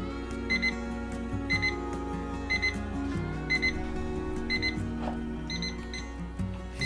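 IKEA KLOCKIS digital kitchen timer beeping at the end of its countdown: short, high double beeps about once a second, until a press on the timer stops them near the end.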